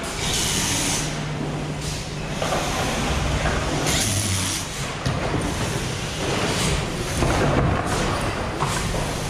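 Factory assembly-line noise: two short bursts of compressed-air hiss, the first about half a second in and the second around four seconds, over a steady low machine hum.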